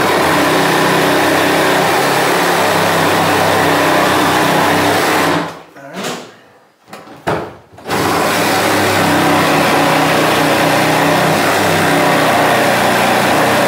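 Jigsaw cutting through a 3/4-inch wooden wall board, running steadily. It stops a little past five seconds in, gives one short burst, and about two seconds later cuts again.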